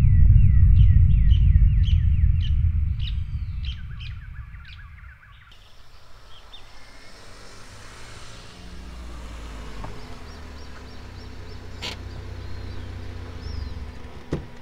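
Birds chirping in a quick repeated series over a loud low rumble that fades away over the first few seconds. Then quieter rural ambience with faint bird whistles and the low hum of a car engine approaching, ending in a couple of sharp clicks near the end.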